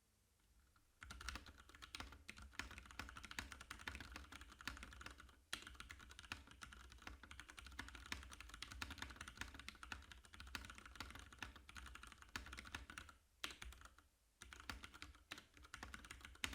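Typing on a Ducky One 2 Tuxedo TKL mechanical keyboard with Cherry MX Brown switches: quick, continuous key clicks starting about a second in, with brief pauses around five seconds in and near the end.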